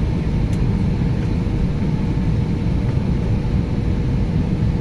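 Steady cabin noise of an Airbus A320neo on approach to landing: a low rumble of engines and airflow, with a faint steady hum over it.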